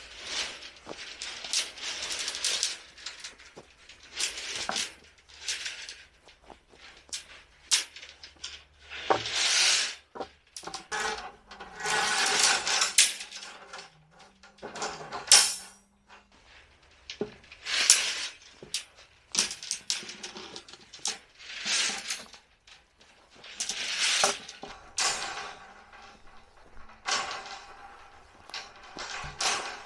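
Steel tie wire being twisted tight around the bars and stirrups of a rebar cage by hand tool: irregular metallic scraping and clinking of wire and tool against the reinforcing steel, in short uneven spells with brief pauses.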